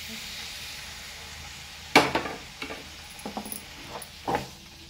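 Squid rings sizzling as they go into hot melted butter and oil in a frying pan. A sharp knock against the pan about two seconds in is followed by several smaller knocks and scrapes as they are stirred with a wooden spatula.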